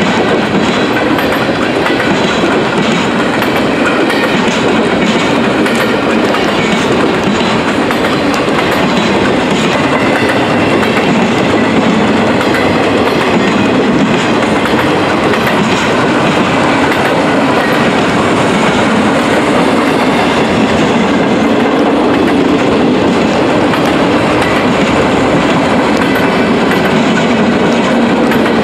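Loaded flatcars of a CSX freight train rolling steadily past: a continuous rumble and rattle of wheels on rail, with regular clicks as the wheels cross rail joints.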